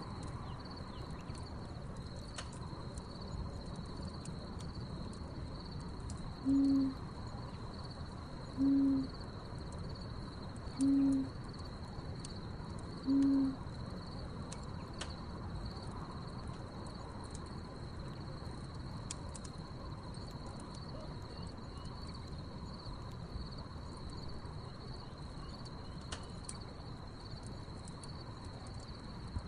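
An owl hooting four times, evenly about two seconds apart, over a steady high chorus of crickets. Sharp crackles and pops from a burning wood fire are scattered throughout.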